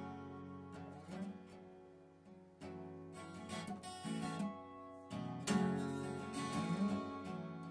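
Background music: an acoustic guitar playing slow chords, each struck and left to ring out.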